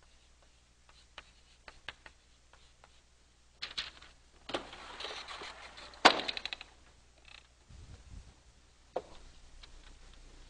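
Chalk on a chalkboard: short clicks and taps while a word is written, then a couple of seconds of scraping rustle with a sharp knock, and another knock a few seconds later.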